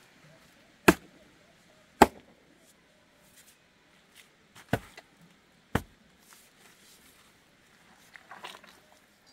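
A pick striking hard, stony earth: four sharp blows in two pairs, each pair about a second apart, with a softer scrape of loosened soil near the end.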